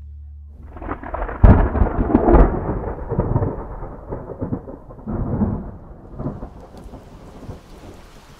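A thunderclap crackling and rumbling, loudest about one and a half to two and a half seconds in, then rolling away over the next few seconds into the steady hiss of heavy rain.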